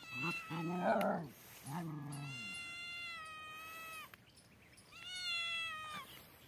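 Spotted tabby cat giving drawn-out warning yowls at a dog: a long, steady yowl of about two seconds, then a shorter one near the end. Lower growling comes in the first two seconds.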